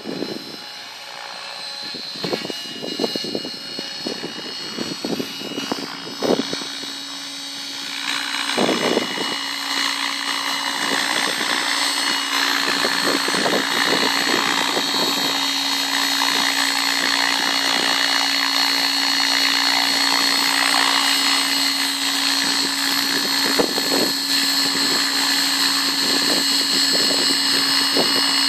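700-size radio-controlled helicopter in flight: a steady rotor and motor whine that grows louder about eight seconds in as the helicopter comes lower and closer, with irregular low thumps in the first few seconds.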